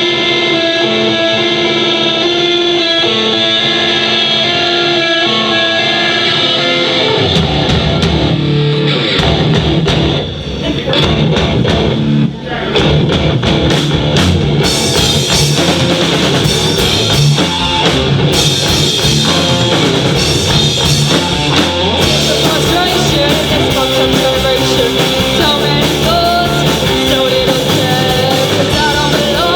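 Live rock band playing an original song: an electric guitar alone for the first several seconds, then bass and drums come in about seven seconds in and the full band plays on.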